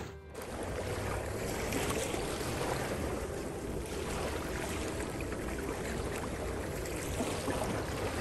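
Steady seaside ambience: an even rushing of sea and wind.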